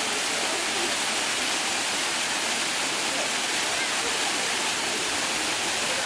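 Bakthang waterfall pouring down rock into a shallow pool: a steady, unbroken rush of falling water.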